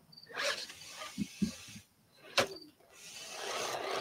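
Element RC Utron trail truck crawling up a rock step: the small electric motor and drivetrain whir under load and the tires scrabble on the rock, with a sharp knock about two and a half seconds in and the noise swelling toward the end.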